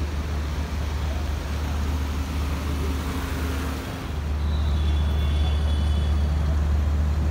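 Steady low rumble of vehicle engines and traffic noise, dipping briefly about four seconds in and then coming back a little louder.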